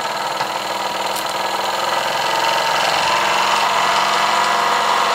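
Scratch-built oscillating model steam engine running, speeding up and growing louder over the first few seconds as its regulator valve is opened, then holding steady at a fast speed.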